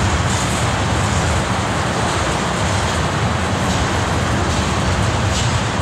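Freight-train tank cars rolling past, a steady noise of steel wheels on the rails.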